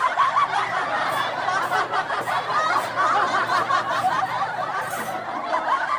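A group of people laughing and snickering continuously, many voices overlapping.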